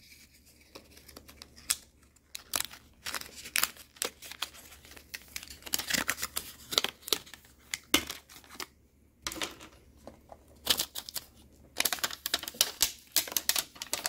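Stiff clear plastic packaging of a laptop memory stick being handled and opened: irregular clicks, snaps and crinkles, busiest about halfway through and near the end.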